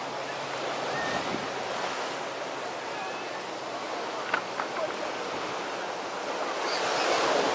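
Ocean waves washing onto a beach, a steady rush that swells about a second in and again, more loudly, near the end as waves break.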